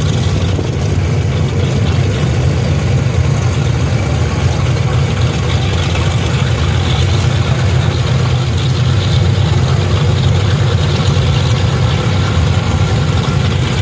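Boeing B-29 Superfortress's four Wright R-3350 radial piston engines running at taxi power: a steady, heavy low drone.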